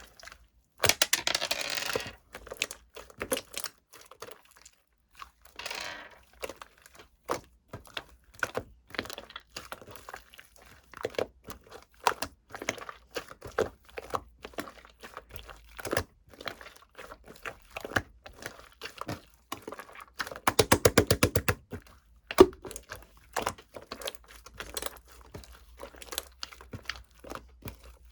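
Crinkling and tearing of wrapping, with scattered clicks and taps. About 20 seconds in comes a quick, even run of clicks lasting under two seconds.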